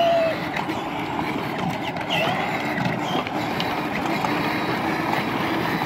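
Steady rolling noise of a bicycle ridden along an asphalt street.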